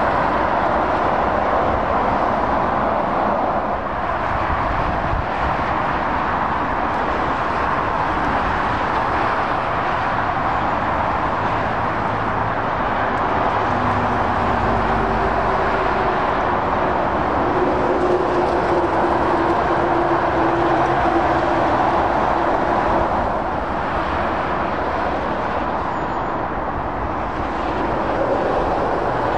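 Steady motorway traffic roar of lorries and cars passing at speed, mostly tyre noise. Around the middle a heavy truck's engine drone stands out as a steady low hum for several seconds.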